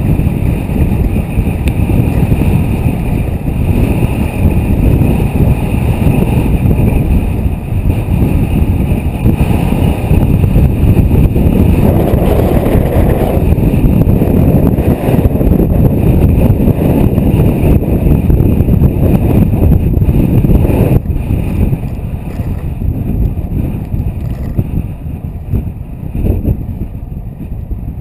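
Wind buffeting the microphone of a camera riding along on a moving bicycle: a loud, steady low rumble. It drops suddenly to a lower level about three quarters of the way through.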